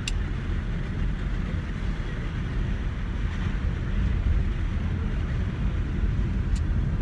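Steady low road and engine rumble inside the cabin of a moving van, with a brief click just after the start and another near the end.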